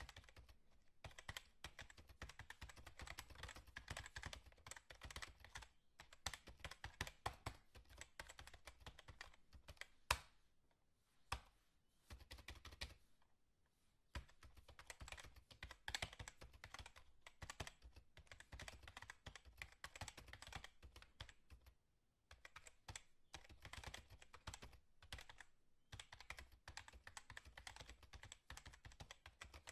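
Rapid typing on a computer keyboard: keys clattering in runs of several seconds with short pauses between, and one sharper, louder key strike about ten seconds in.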